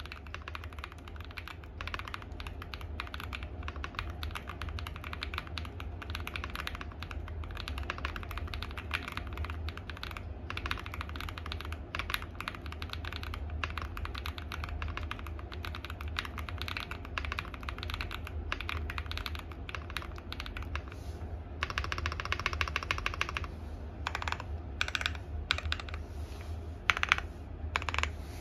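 Typing on a Star75 custom mechanical keyboard with HG Black switches on an FR4 plate: a steady stream of keystrokes, then about three-quarters through a fast unbroken run of key presses, followed by a handful of separate, louder single strokes.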